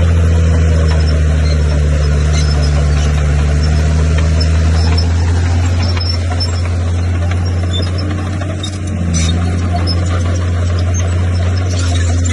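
Bulldozer's diesel engine running steadily under load, a loud low drone with faint high squeaks over it and a brief drop in level about two thirds of the way through.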